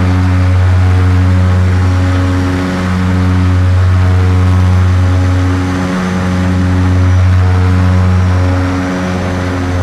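Airship's engine and propeller drone heard inside the gondola in flight: a loud, steady low hum with slow swells and dips in level every few seconds.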